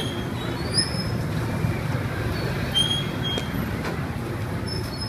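A steady low rumble with a short, high, squeaky tone about every two seconds, as from metal rotisserie spits turning over a charcoal grill.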